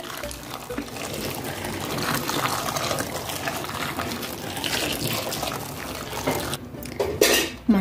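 Boiling water being poured steadily into a metal bowl of red bell peppers, filling it up; the pour stops about six and a half seconds in, followed by a brief sound near the end.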